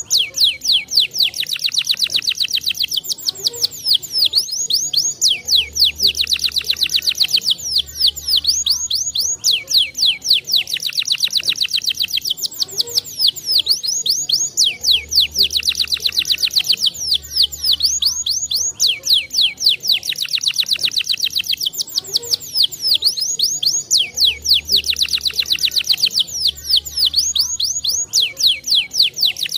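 Domestic canary singing fast, high-pitched trills and rolls without a break, the song repeating as a loop about every nine seconds. A low hum comes and goes in pairs beneath it.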